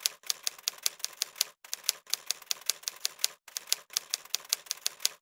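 Typewriter keys clacking, about six strikes a second, in runs broken by short pauses.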